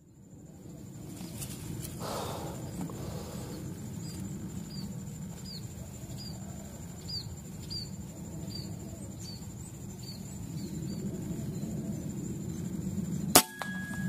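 Outdoor orchard ambience with a steady high insect whine and a small bird's short falling chirps repeating about every half second. Near the end comes a single sharp crack from an air rifle fired at a perched dove, the loudest sound here.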